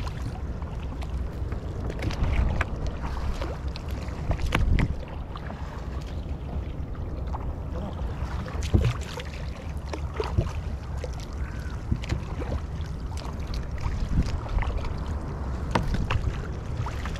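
A fishing boat's steady low rumble, with scattered knocks and clatter as a fishing net is paid out over the side.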